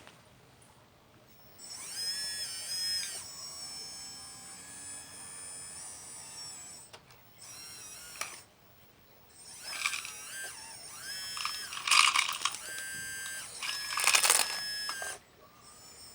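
Small electric motors and gearing of radio-controlled construction models whining in bursts, the pitch dipping and rising as they work under load. There are three runs, the last and loudest lasting about five seconds.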